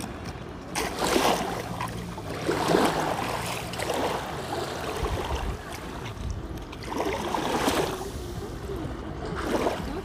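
Small sea waves washing up onto a sandy beach, swelling and falling back about five times, with wind blowing.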